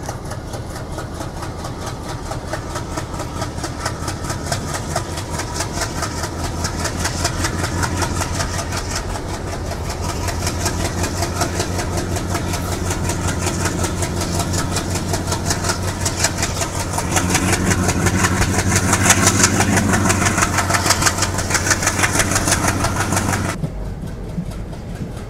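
An ALCO diesel locomotive's engine working hard as it hauls a passenger train, a steady rapid chugging heard from a coach a few cars back. It grows louder in the last several seconds, then drops away sharply shortly before the end.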